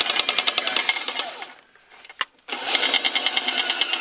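Cordless impact driver hammering on a bolt with a rapid clatter. It stops about one and a half seconds in, a single click follows, and it starts hammering again about halfway through.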